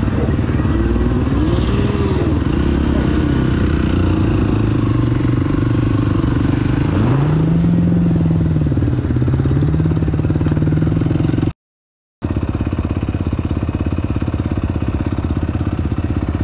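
Side-by-side off-road vehicle's engine running on a trail, its pitch rising and falling twice as the throttle is worked. The sound drops out for a moment about two-thirds of the way through.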